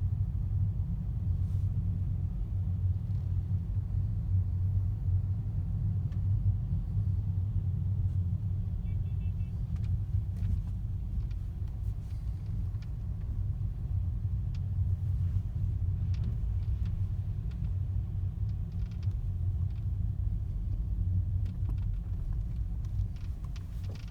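Mercedes-Benz W204 C-Class heard from inside the cabin on the move: a steady low road rumble, with short faint creaks and clicks from the interior trim scattered through it, more of them in the second half.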